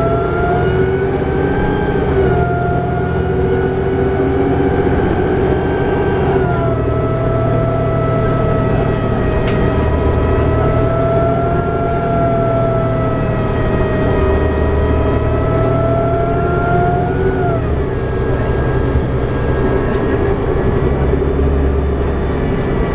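Inside a 2011 New Flyer D60LFR articulated diesel bus on the move: the Cummins ISL9 diesel and Allison B500R automatic transmission running over a steady road rumble. A whine on top drops in pitch about six seconds in and falls away near seventeen seconds.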